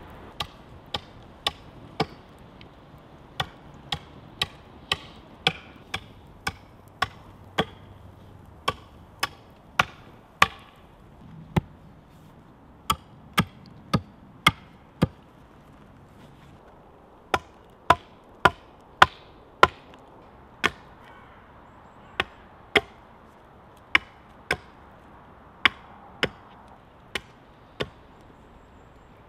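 Axe chopping into the end of a wooden pole on a stump. Sharp single chops come about one every half second to a second, in runs with a few short pauses.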